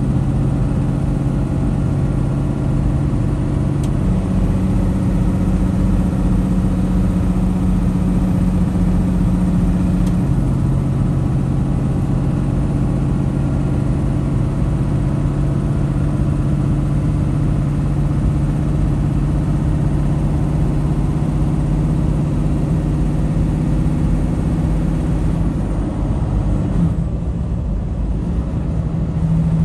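Semi truck's engine and road noise heard inside the cab while cruising on the highway, a steady drone whose engine note steps up about four seconds in and drops back about ten seconds in.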